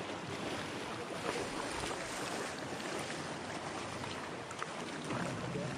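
Steady rush of shallow river water running over rocks and around the legs of people wading as they push a wooden boat through a rapid.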